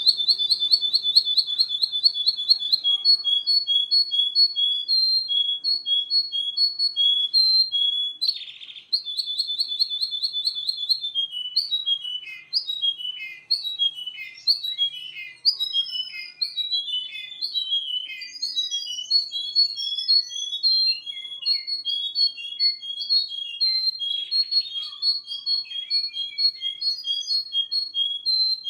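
Russian canary singing a long, continuous song: fast, even trills of repeated high notes at the start and again around nine to eleven seconds in, a stretch of varied sliding notes in the middle, then alternating two-note phrases.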